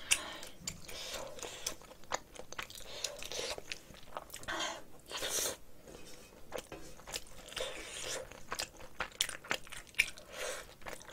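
Close-miked chewing and mouth sounds of someone eating rice mixed with spicy seasoned cockles, with short clicks and scrapes of a spatula against a stainless steel pan.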